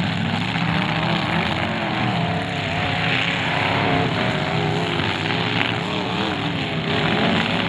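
Several demolition derby cars' engines revving at once, their pitch rising and falling continuously as the cars ram and spin in the dirt.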